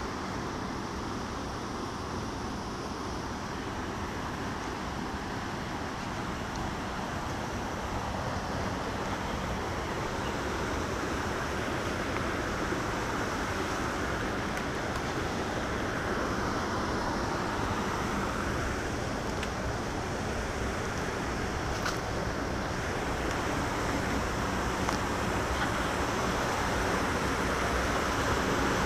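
Steady rush of swollen, flood-muddied creek water, growing slightly louder toward the end.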